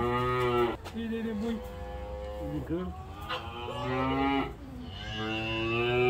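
A calf mooing: three long moos of about a second each, with a shorter, fainter call between the first two.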